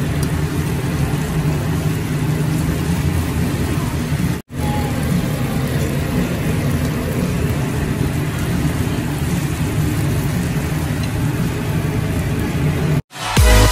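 Steady commercial-kitchen noise with a low hum, as sliced onions sizzle in a frying pan on a gas range. It cuts out for an instant about four and a half seconds in and again near the end.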